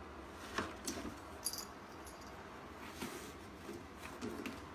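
Light rustling of toilet paper and scattered small clicks as a cat paws and bites at a toilet-paper roll on its holder, over a low room hum.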